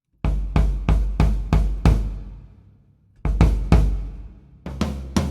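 Vintage Gope acrylic drum kit struck in a sound check: six evenly spaced, deep drum hits about three a second, a pause of about a second while they ring out, then a few more hits.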